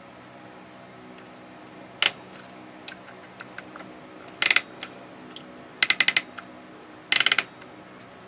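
Underwood typewriter's carriage coil spring being wound back up after its tension was released: the winding knob's ratchet clicks in short, rapid bursts. There is a single click about two seconds in, and three bursts after it.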